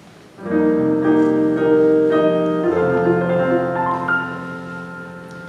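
Piano playing slow, sustained chords, starting about half a second in and dying away near the end.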